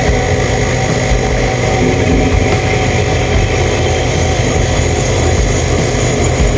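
Crane engine running steadily, heard from inside the operator's cab, with a constant low rumble.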